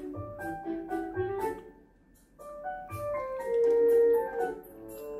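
Background music: a light melody of short, level notes that pauses briefly about two seconds in, then comes back with longer held notes.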